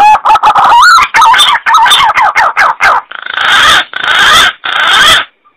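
Green pigeon (punai) call played as a hunting lure: a quick run of whistled notes warbling up and down, then three harsh rasping notes. Loud and distorted.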